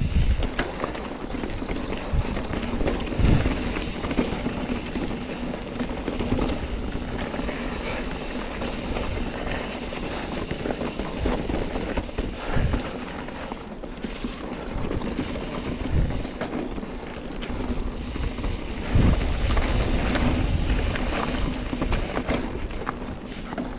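Mountain bike riding a dirt trail: tyres rolling over dirt and rocks, with irregular knocks and rattles from the bike over bumps and wind buffeting the microphone.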